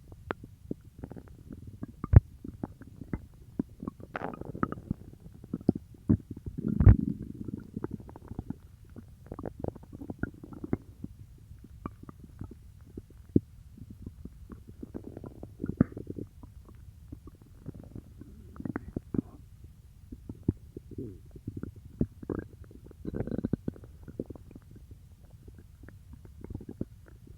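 Human stomach growling and gurgling while digesting peanut butter: an irregular run of low gurgles and sharp little pops, with louder rumbling swells about 4 and 7 seconds in and again near the end.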